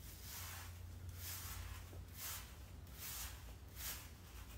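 Faint swishes of a stiff teasing hairbrush drawn back through hair, about five strokes roughly a second apart, over a low steady hum.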